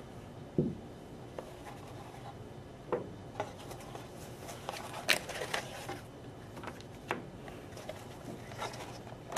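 Handling noise from unpacking a clear plastic clamshell package with a foam insert: scattered light clicks, scrapes and rubs as small parts are lifted out and set down on a tabletop.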